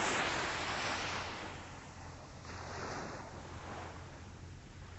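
Atlantic surf washing up the beach: the wash of one wave fades away, and a smaller one swells and recedes about three seconds in.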